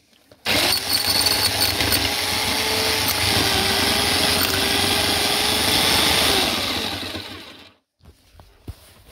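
SDS drill with a large bit boring through the chimney breast wall. A loud, steady motor whine with drilling noise comes in about half a second in and winds down near the end.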